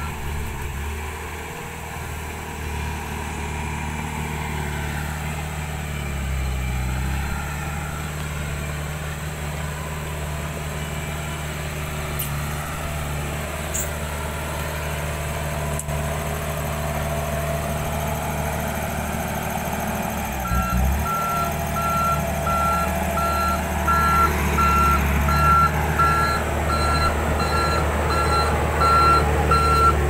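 Komatsu D31EX crawler bulldozer's diesel engine running steadily as it works the soil. From about two-thirds of the way in, its reverse alarm beeps over and over while the dozer backs up, and the machine grows louder.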